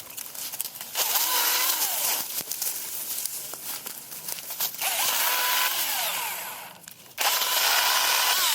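Husqvarna 225i battery chainsaw running in three bursts. Its electric motor whine rises and falls in each burst over the hiss of the chain.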